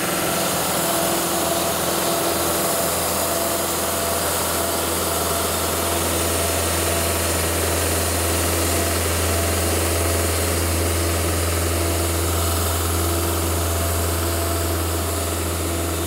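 Cook's AC36 hydraulic portable bandsaw mill running steadily under load as its sawhead feeds down a log, cutting a 1½-inch board: a steady engine drone with the band blade sawing through the wood.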